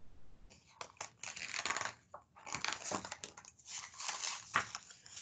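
Paper pages of a large picture book rustling and crinkling as they are handled and turned, in a series of short rustles and soft crackles.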